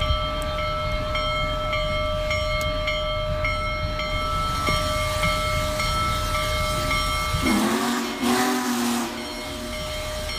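Union Pacific steam locomotive running under steam: a steady low rumble with a ringing tone over it. About seven and a half seconds in, a deep chime steam whistle sounds for about a second and a half with a rush of steam hiss.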